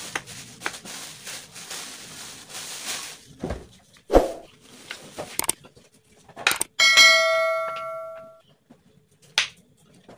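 A kitchen knife cutting through salted peda fish on a wooden cutting board: scraping strokes, then sharp knocks of the blade on the board, the loudest about four seconds in. A bell chime from the subscribe-button animation rings out and fades at about seven seconds in.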